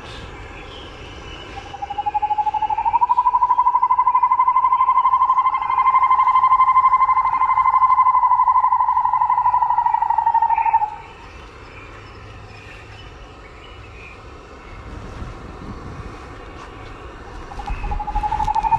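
A long, steady trilling drone that rises a little in pitch as it starts, holds for about nine seconds and stops, then starts again the same way near the end.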